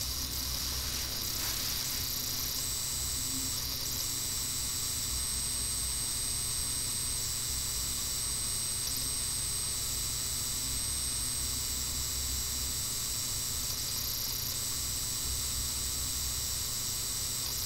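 Steady background hiss with a faint high-pitched whine and a low hum, unchanging throughout; no distinct events.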